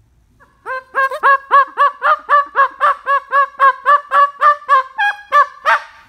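Umbrella cockatoo giving a rapid string of short, high-pitched dog-like barks, about four a second, starting under a second in and stopping near the end.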